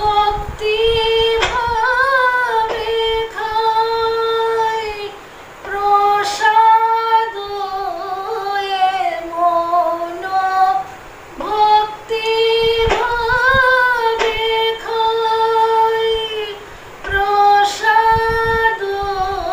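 A woman singing a slow devotional song solo and unaccompanied, in long, sustained, high notes. The same melodic phrase comes round about every five and a half seconds, with short breaths between.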